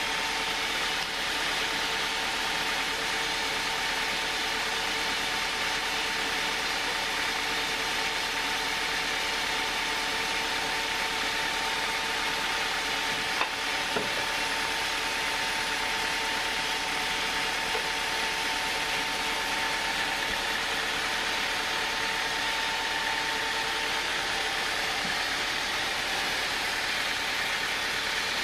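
Band sawmill with a log carriage on rails running steadily, a constant machine drone with a steady hum. Two short knocks sound about halfway through.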